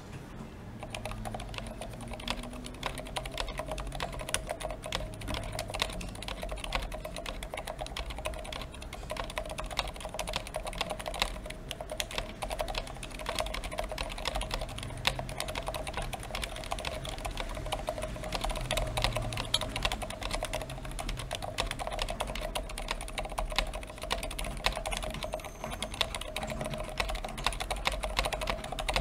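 Continuous fast typing on a Monstagear NINJA87 Alu XO aluminium tenkeyless mechanical keyboard fitted with stock, unlubed Healios v2 silent linear switches and stock hybrid stabilizers: a dense, irregular run of keystroke clacks.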